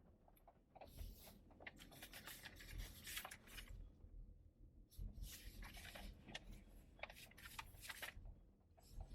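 Faint scratchy rustling and crackling in two stretches of a few seconds each, one starting about a second in and the other about five seconds in.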